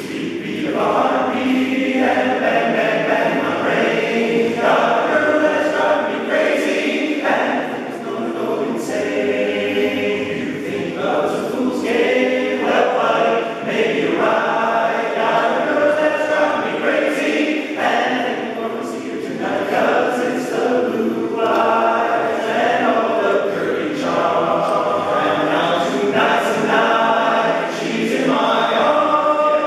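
Male voice choir singing, many men's voices together in sustained sung phrases.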